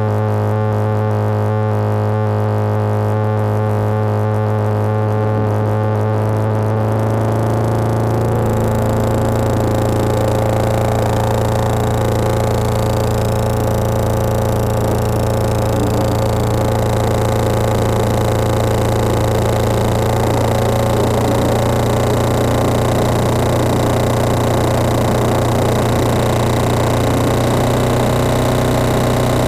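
Lo-fi synthesizer noise: droning oscillators from a Colossus kit synth fed through a distortion pedal, over a noise bed from a crashed Casio SA-1 through a low-pass filter. A steady low drone holds throughout; about eight seconds in it turns grittier with added high tones, and a little later a high tone sweeps up and back down.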